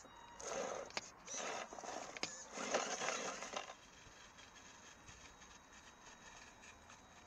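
RC crawler truck's tyres crunching and scraping over rocks, dirt and dry leaves in irregular bursts during the first three and a half seconds. After that only a faint steady background remains.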